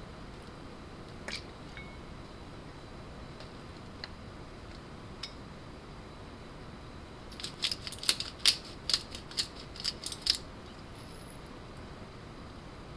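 Pepper grinder cracking peppercorns: a quick run of sharp crackles about two to three a second, starting about seven seconds in and lasting about three seconds, with a few faint clicks from the spoon and bowl before it.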